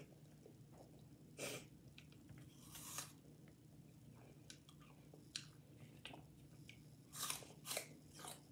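Person biting and chewing raw apple slices: short crisp crunches about a second and a half in and around three seconds, then a quicker cluster of crunches near the end.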